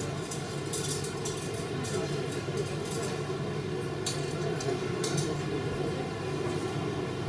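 Steady hum of taxiing airliners' jet engines at low taxi power, a layered drone with a fixed whine in it. A few brief high hisses come and go over it.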